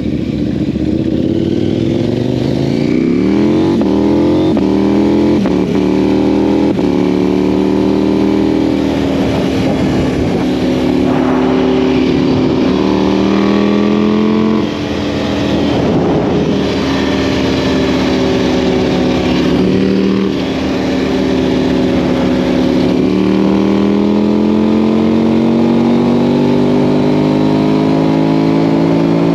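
Sport quad's swapped-in KTM Duke 790 parallel-twin engine under way. It revs up about three seconds in, then runs at high revs, easing off and pulling up again twice. The throttle lifts briefly about halfway through.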